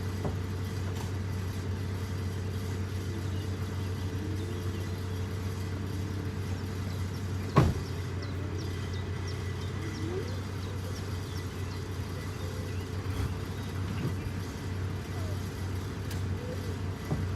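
Heavy diesel engine running steadily at an even speed, with a single sharp knock about seven and a half seconds in.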